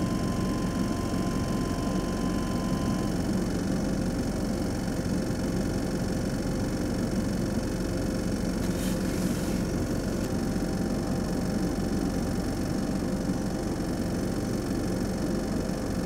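A vehicle engine idling: a steady, even low rumble with a faint constant hum over it.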